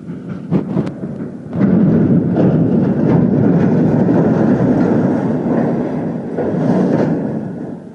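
A 235-ton portal crane's steel structure making heavy mechanical noise: a few knocks, then a long, loud rumble that fades near the end.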